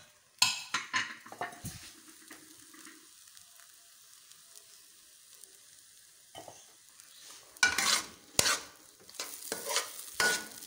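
Steel spatula stirring and scraping thick semolina halwa against a steel pan, in a short run of strokes about half a second in and a longer, louder run from about seven and a half seconds on, with a quiet stretch between.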